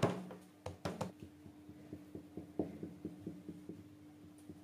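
A few knocks, then quick, even taps at about five a second as a fork pricks pizza dough all over in its baking pan.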